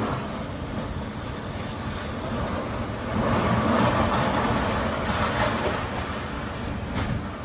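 Storm-force wind of a windstorm rushing steadily, swelling into a stronger gust about three seconds in and easing off a couple of seconds later.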